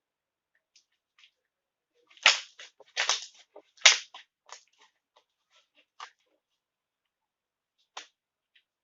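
Homemade slime being squeezed and poked by hand, giving scattered sharp wet pops and clicks. The loudest come a little after two seconds and just before four seconds in, with fainter ones after that.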